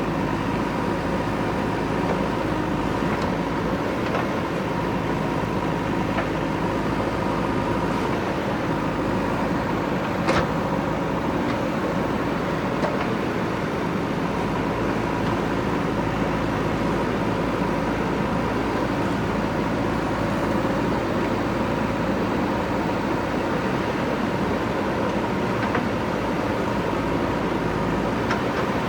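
JCB 3DX backhoe loader's diesel engine running steadily, with a single sharp knock about ten seconds in.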